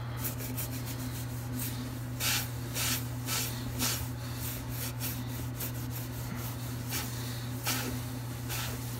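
A hand rubbing and pressing over newly set pebble mosaic tiles: a run of short, irregular scuffing strokes over a steady low hum.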